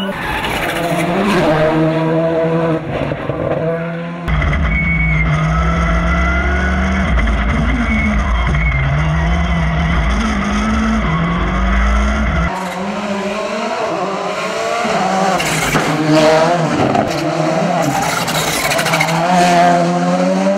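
VW Polo GTI R5 rally car's turbocharged four-cylinder engine racing uphill, revving high and dropping back at each gear change. From about four seconds in it is heard from inside the cabin with a heavy low drone, then from the roadside again from about twelve seconds.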